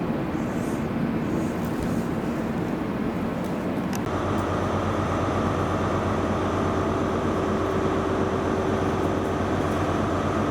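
Steady mechanical rumble of a running motor or vehicle. About four seconds in it changes to an even drone with several steady held tones.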